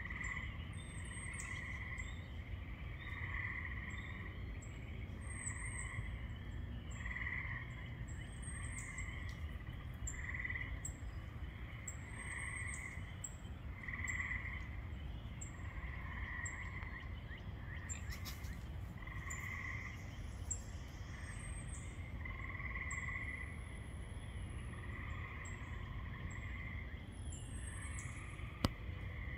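Frogs calling in a chorus, short trilled calls repeating about once a second, with thin high chirps repeating above them and a low steady rumble underneath. A single sharp click comes near the end.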